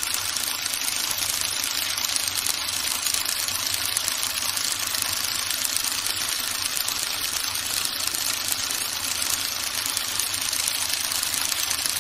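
Film projector running, a steady, even mechanical whir.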